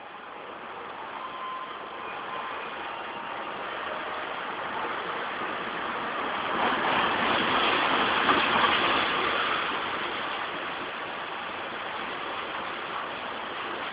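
The Bima train's locomotive and coaches arriving and rolling past close by. The engine and running noise swell as the locomotive goes by, loudest about seven to nine seconds in, then ease to a steady rumble as the coaches follow.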